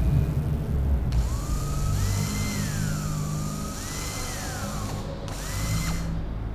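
A small electric motor whirring, its pitch climbing, holding, then sliding down again several times over, with a short break a little after five seconds in.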